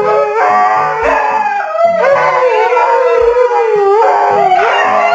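A dog howling in long, wavering notes that rise and fall in pitch, over background music with a repeating bass pattern.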